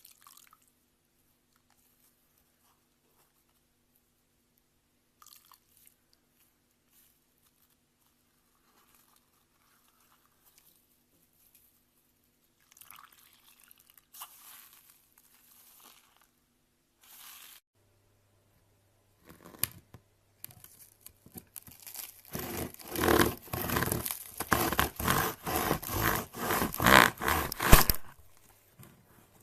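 Slime being squeezed and pressed in the hands: long quiet stretches with only faint soft sounds, then, in the last third, a dense run of rapid crunching and crackling.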